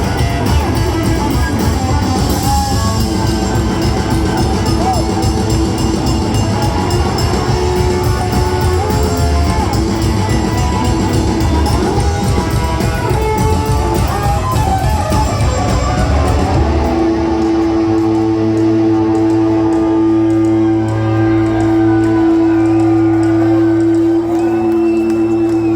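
A rockabilly band playing live in a large hall, with electric guitar. About two-thirds of the way through, the beat stops and a long held note rings on over a steady low tone.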